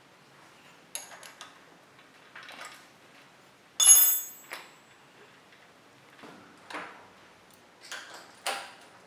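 Small clicks and knocks of bicycle brake parts being handled and fitted, metal against metal and plastic. About four seconds in comes one sharp metal clink that rings briefly, the loudest sound, and a few quicker clicks follow near the end.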